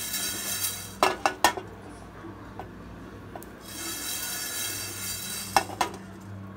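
Whole coriander seeds, cinnamon sticks and cardamom being stirred as they dry-roast in a non-stick pan without oil. The seeds rattle and scrape across the pan in two bouts, with a few sharp clinks against the pan about a second in and again near the end, over a steady low hum.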